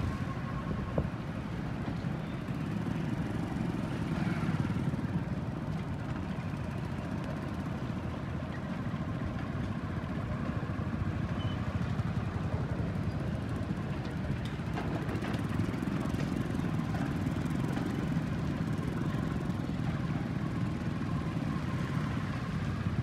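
Motorcycle engines running steadily while riding, a low, even drone with road noise.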